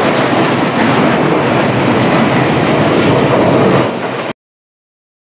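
Steady jet noise from a Boeing 747-400 freighter's four engines as it passes low on landing approach; the sound cuts off abruptly about four seconds in.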